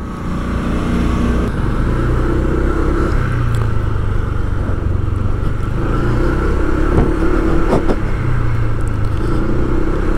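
Motor vehicle engine running close by in street traffic, its note shifting up and down every few seconds.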